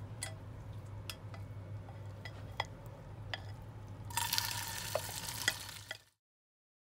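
Hot canola oil in a nonstick frying pan, with scattered faint ticks over a low steady hum. About four seconds in, the egg-soaked potato chip mixture is poured in and sizzles loudly, with a few clicks of a plastic spatula against the pan. The sound cuts off abruptly about six seconds in.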